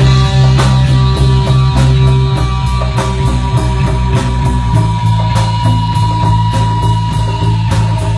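Rock music with distorted guitar and a steady drum beat.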